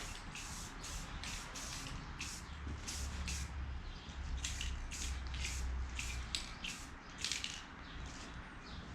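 Aerosol spray-paint can of metallic aluminum paint hissing in short bursts, about two a second, as a very thin misting coat goes on.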